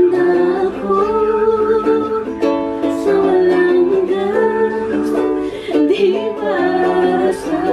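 Ukulele strummed in chords while a woman sings a melody along with it, in a small room.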